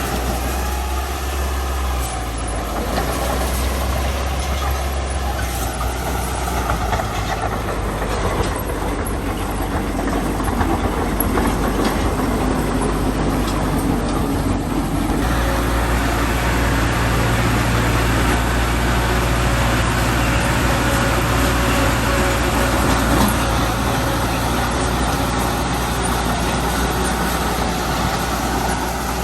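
Diesel engine of heavy earthmoving machinery running steadily under load, its note stepping up and getting fuller about halfway through.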